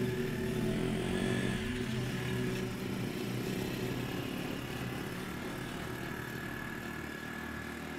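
Small motorcycle engine of a loaded three-wheeled cargo motorcycle running steadily as it drives away, slowly fading.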